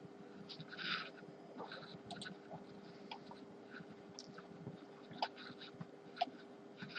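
Faint scattered clicks and small taps of tools and parts being handled while an iPhone's front and back panels are separated, over a steady low hum.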